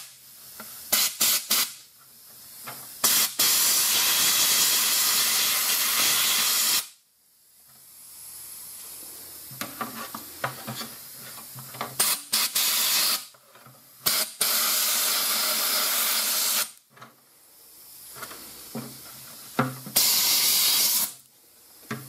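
SpeedBlaster gravity-feed media blaster running on compressed air (about 90 psi), blasting fine abrasive grit onto a plastic bracket inside a plastic bucket to roughen it for bonding. A few short squirts on the trigger come first, then longer blasts of two to three seconds each, every one starting and stopping abruptly.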